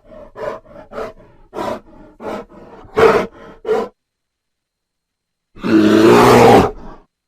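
Bear vocalising: a run of short grunts, about two or three a second, for the first four seconds. After a pause comes one long, loud growl of about a second and a half.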